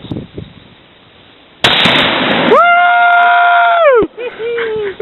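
A Tannerite exploding target detonating about a second and a half in: a sudden loud blast whose rumble dies away over about a second. A person's long high whoop follows, its pitch falling at the end.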